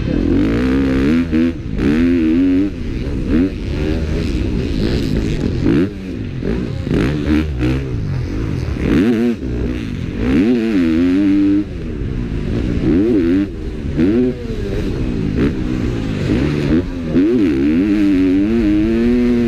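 Motocross bike engine heard from on the bike while racing, revving up and down over and over as the rider opens and closes the throttle through the track, with clatter and knocks from the bike over the rough dirt.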